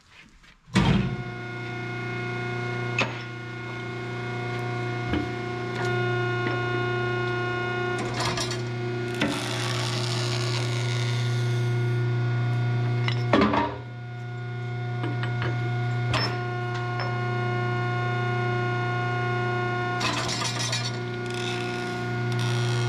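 Hydraulic shop press running with a steady hum, starting about a second in, as its ram pushes the old rubber bushing out of a truck torque rod end. A few sharp cracks and two short bursts of hiss break in as the bushing gives way under the press.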